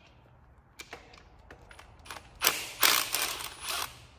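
Cordless power tool spinning out an 8 mm bolt from the slave cylinder / throw-out bearing bracket in a transmission bellhousing: a few light clicks, then a loud burst of the tool running in several surges for about a second and a half.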